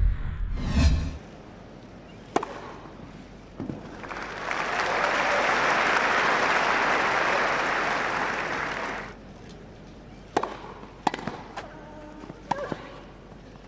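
A short musical sting with a bright swish, lasting about a second, then quiet court sound. The crowd applauds for about five seconds, swelling and dying away. After that comes a series of sharp knocks of a tennis ball being bounced and struck on a grass court.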